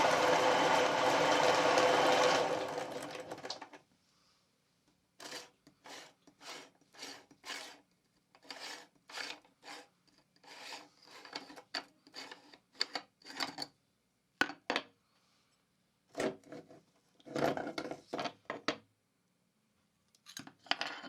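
Meat grinder running steadily, then winding down and stopping about three seconds in. After that comes a long series of short scraping strokes, about two a second, in runs broken by pauses.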